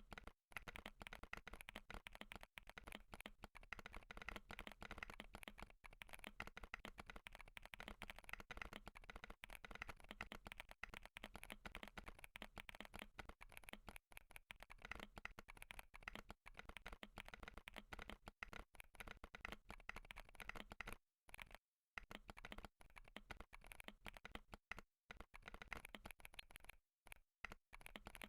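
Fast, continuous typing on a Wooting 60HE keyboard with Wooting Lekker Hall-effect switches, a stainless steel plate and OEM PBT doubleshot keycaps, its keystrokes clattering densely. The typing breaks off briefly a few times near the end.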